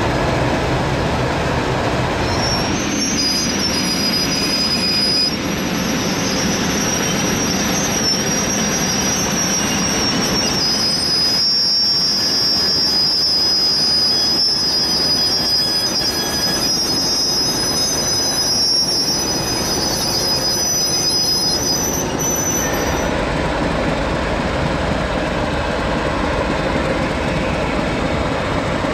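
English Electric Dg class diesel-electric locomotive running slowly as it is turned, its wheels squealing in high, steady tones from about three seconds in until about 23 seconds in, with the diesel engine running underneath and sounding stronger near the end.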